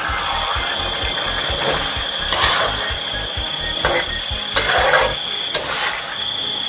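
Stirring food in a cooking pot with a spatula: several short scraping strokes against the pan, roughly a second apart, over a steady high whine.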